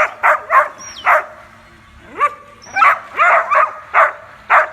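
A dog barking excitedly in a quick series of short, sharp barks, with a brief pause about halfway through.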